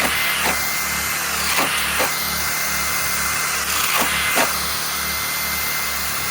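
Masterforce Boost cordless hammer drill running steadily under load as its bit bores into plywood, with a few short sharp cracks of wood now and then.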